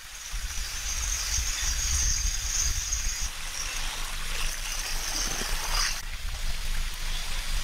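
Shallow stream water running and trickling over a flat rock slab, with a steady high hiss.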